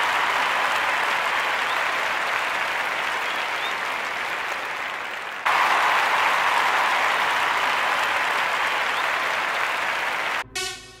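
Applause from a crowd, slowly dying away and then starting again at full strength abruptly about halfway through. Electronic music begins just before the end.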